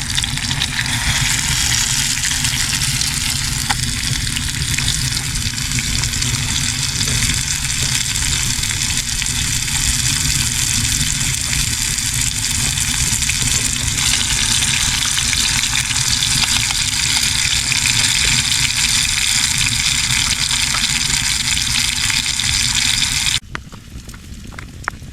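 Food sizzling as it fries in a pan, a loud and steady hiss. Near the end it cuts off abruptly, leaving a much quieter background with a few sharp crackles.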